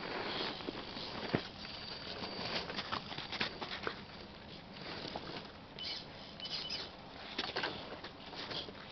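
Redcat Rockslide 1/8-scale electric rock crawler working slowly through packed snow: irregular crunching and clicking of its tyres and chassis on the snow, with a faint high motor whine now and then.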